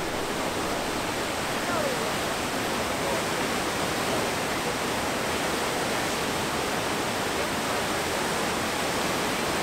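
Huka Falls whitewater rushing through a narrow rock gorge: a steady, even roar of fast, churning water.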